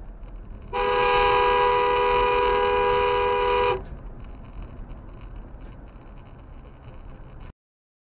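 A car horn held in one long honk of about three seconds, two notes sounding together, over a steady low road rumble from a moving car. The road noise cuts off suddenly near the end.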